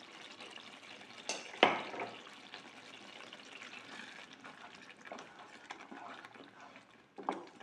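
Chilli sambal paste sizzling in a non-stick frying pan as belacan water is poured in and a wooden spatula stirs it. A couple of sharp knocks against the pan about a second and a half in, the loudest sounds, and another near the end.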